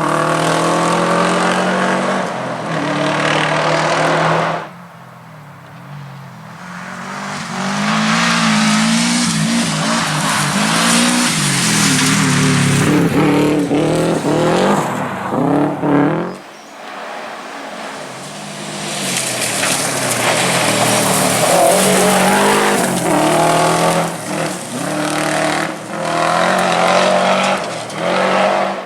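Subaru WRX rally car's turbocharged flat-four engine driven hard, revving up and dropping back again and again through gear changes. The sound falls away abruptly about four and a half seconds in and again about sixteen seconds in, then builds back up.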